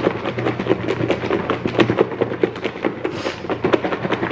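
Salad with dressing being shaken hard in a lidded plastic takeout bowl: a fast, even run of rattling knocks of lettuce and toppings against the plastic, about seven a second, with a brief hiss about three seconds in.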